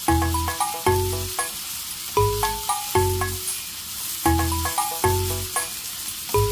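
Sweet potato stems and sliced onion sizzling in a hot pan as they are stir-fried and tossed with wooden chopsticks, under background music of plucked notes over a bass line.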